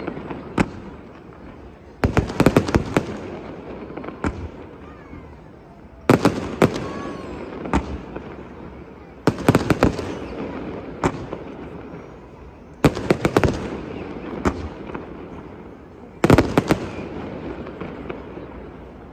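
Aerial fireworks shells bursting in five volleys, spaced about three and a half seconds apart. Each volley is a cluster of sharp bangs that rings off into a fading echo before the next.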